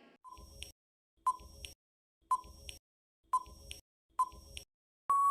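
Countdown timer sound effect: five short beeps about one a second, each followed by a faint click, then a long steady beep near the end marking that the time is up.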